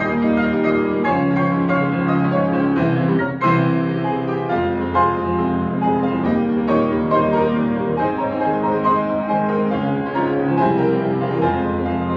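Grand piano played four hands as a duet: full chords over a strong, moving bass line, with a brief break about three and a half seconds in before a new phrase starts with an accented chord.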